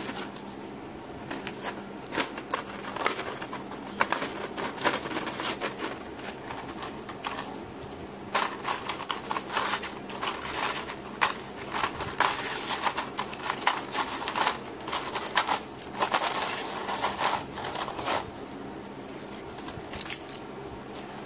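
Clear plastic blister packaging and its paper backing being torn open and crinkled by hand, with irregular crackles, clicks and tearing rustles, busiest in the middle stretch.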